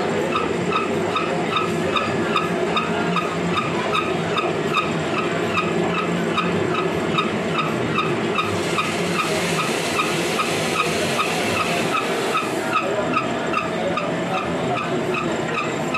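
Shop-built slewing bearing machine running, its electric motor and worm gearbox driving the large ring gear, with a steady mechanical noise and a regular ticking about three times a second. A hiss joins for about four seconds midway.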